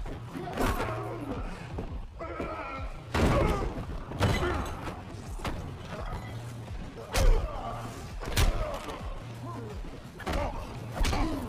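Movie fight sound effects: several hard punches and body blows landing at irregular intervals, with grunts of effort and a dramatic music score underneath. The loudest hit falls about seven seconds in.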